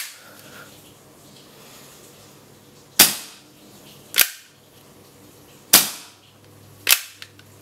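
Sharp clacks from a Tokyo Marui Hi-Capa 5.1 gas blowback airsoft pistol's slide and action being worked by hand: one right at the start, then four more about a second or so apart, with a few faint ticks near the end. The slide had been sticking and not returning forward.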